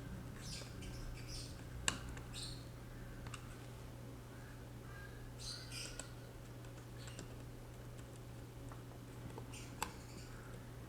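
Small screwdriver driving tiny screws into a plastic headphone housing: short scratchy spells with two sharp clicks, one about two seconds in and one near the end, over a steady low hum.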